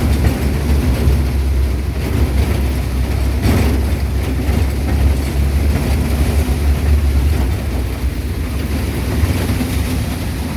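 Jeep driving, a steady low engine and road rumble.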